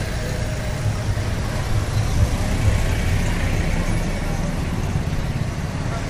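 Busy street traffic passing close by: a steady low engine rumble with a wash of road noise, the rumble swelling about one to three seconds in as a vehicle goes past.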